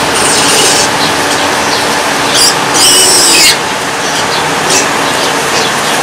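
Piglets squealing: a high-pitched squeal at the start, a short one about two and a half seconds in, and the loudest and longest squeal about three seconds in, over a steady background din.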